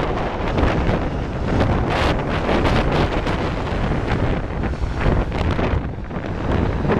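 Strong wind buffeting the microphone in uneven gusts, a loud rumbling rush.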